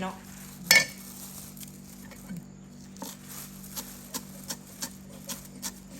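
Light, evenly spaced kitchen taps, about three a second from midway on, preceded by one sharper knock just before the first second, all over a steady low hum.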